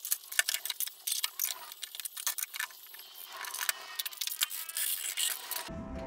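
Rapid, irregular light clicks and wooden clatter as thin wooden battens are laid across a wooden surfboard frame. The clatter cuts off near the end as music with a beat begins.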